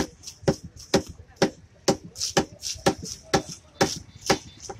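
Cleaver chopping fish on a wooden log chopping block in steady strokes, about two a second, with lighter ticks between the strokes.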